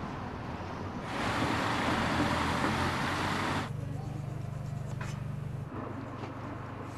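Chicken burgers frying in oil in a pan: a steady sizzle for about two and a half seconds that cuts off abruptly, followed by a steady low hum.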